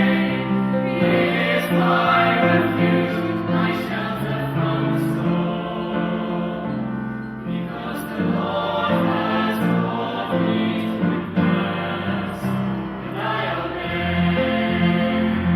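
A choir singing church music in held chords that change every second or so.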